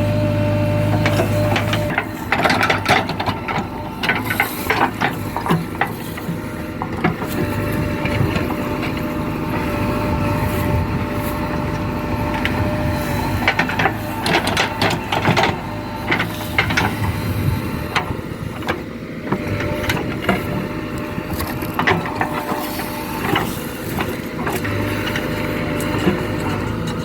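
JCB 3DX backhoe loader's diesel engine running under working load, with repeated sharp knocks and clanks from the machine working. A heavy low hum eases off about two seconds in.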